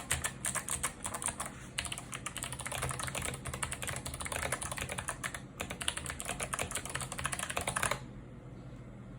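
Fast typing on a Rakk Lam-Ang Pro mechanical keyboard with clicky Kailh Box White switches and SA-profile keycaps: rapid, overlapping key clicks that stop near the end, leaving a faint steady hiss.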